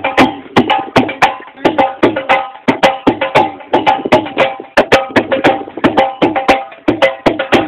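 Dhol drum beaten by hand in a fast, steady rhythm, each stroke sharp with a short ringing tone.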